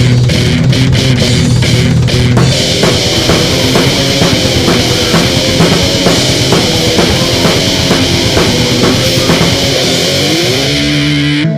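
Grindcore band playing: heavily distorted guitar and bass over fast drums, with a cymbal wash coming in a couple of seconds in. Near the end a note slides up in pitch, then the music cuts off abruptly.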